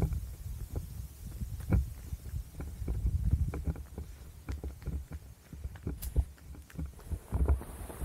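A runner's footsteps thudding on a rural path, about two to three strides a second, over a steady low rumble on the camera's microphone.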